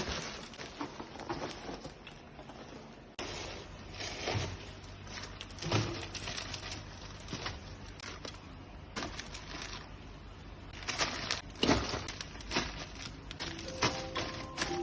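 Handling noise: irregular knocks, clicks and rustling.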